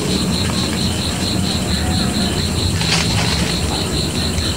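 Insects chirping at night in an even pulse of about five a second, over a constant low rumble, with a few sharp clicks about three seconds in.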